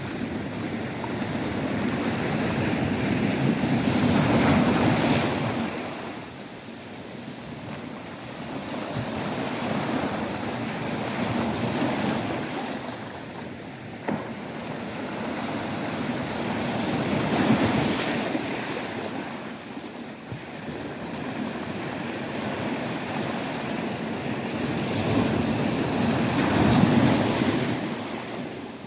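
Rough sea surf: waves surging in and breaking in loud swells every several seconds, with a constant wash of water between them and wind on the microphone.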